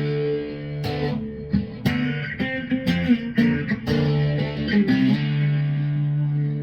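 Background music led by guitar: plucked notes and chords struck about once a second over sustained low notes.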